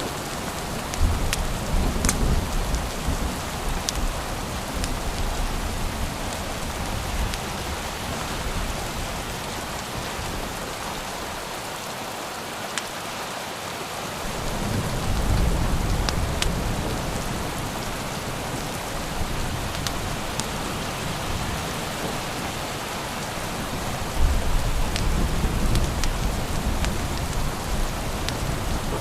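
Steady rain with low rolls of thunder, one starting about a second in, another about halfway, and another near the end. A few sharp ticks are scattered through the rain.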